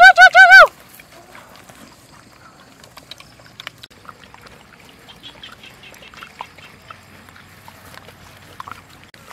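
Four loud, high, arching animal calls in quick succession at the very start. After them come soft scattered crunching and rustling as puppies and a piglet eat fried duck egg from wicker baskets.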